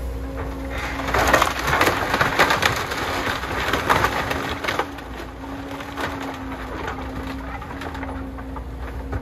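Cat hydraulic excavator's diesel engine running steadily while its bucket tears into a wood-frame house. From about a second in, timber cracks and splinters in a dense run of snaps and crunches for several seconds, then it dies back to the engine.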